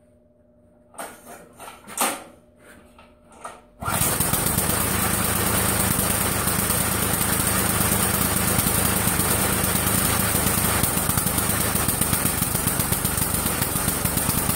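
Small Briggs & Stratton lawn-tractor engine being pull-started: a few short tries in the first seconds, then it catches about four seconds in and runs steadily until it stops at the end. It is running rough, which the owner puts down to oil that got into the cylinder during years of storage.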